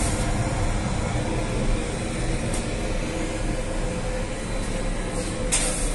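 Steady mechanical drone of flatbread bakery machinery: the conveyor belts and oven running. A brief sharp hiss or scrape comes about two and a half seconds in and again near the end.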